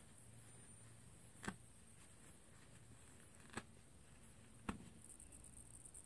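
Near silence: room tone, broken by three short taps spread over a few seconds.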